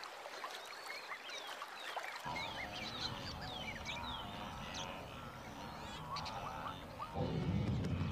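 Wild birds chirping and calling in many short rising and falling notes over a low steady background noise. About seven seconds in, the louder, lower sound of the wildebeest herd joins in.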